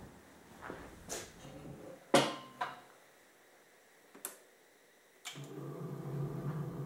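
A few sharp clicks and knocks, the loudest about two seconds in and one as the control knob is turned, then a little after five seconds in the Hobart HL200 20-quart planetary mixer starts up and runs with a steady motor and gear-drive hum.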